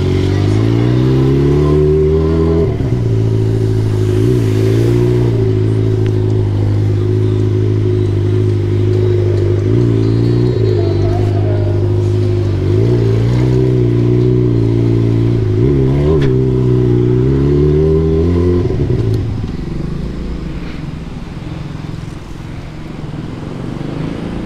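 Motorcycle engine heard from the rider's seat while riding, its pitch rising with the throttle and dropping back several times as he accelerates and eases off. Near the end it falls to a lower, rougher note that fades as the bike slows.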